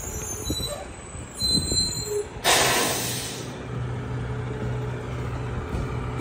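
Mack Granite garbage truck rolling to a stop; about two and a half seconds in its air brakes let out a sudden loud hiss that dies away within a second. The diesel engine then idles with a steady low hum.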